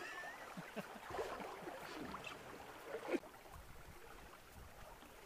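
Faint, steady sound of river water moving around a drift boat, with a single short knock about three seconds in.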